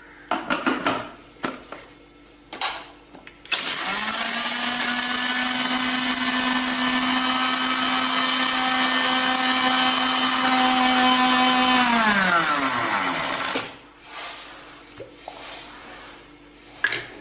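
Electric mixer grinder (mixie) grinding roasted whole spices to powder. The motor switches on about three and a half seconds in with a steady whine, runs for about eight seconds, then is switched off and winds down with a falling pitch. Light clicks and knocks of the jar being handled come before and after.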